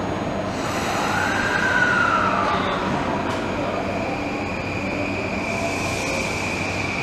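Electric commuter train at a station platform as it prepares to pull out: a short tone that rises and falls about a second in, then a steady high whine from about three seconds on, over the train's constant hum.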